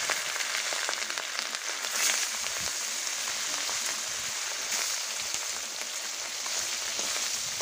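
Fish pieces sizzling in hot oil in a metal kadai: a steady frying hiss with small crackles and spits.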